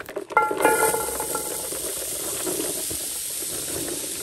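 Chopped onions, celery and carrots sizzling in hot rendered beef fat in a pan, the sizzle jumping up about half a second in with a short metallic ring as they go in, then hissing steadily.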